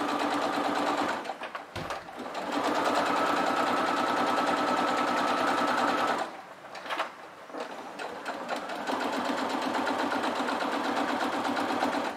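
Electric domestic sewing machine stitching a straight seam through layered cotton fabric and zip tape. It runs in three stretches, stopping briefly about a second in and again about six seconds in.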